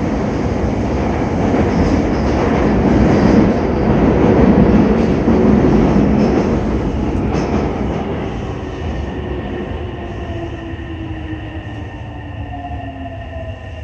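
Tokyo Metro 7000-series subway train heard from inside the car as it slows for a station. The rolling noise swells, then fades, and from about eight seconds in the traction motors' whine falls in pitch as the train brakes.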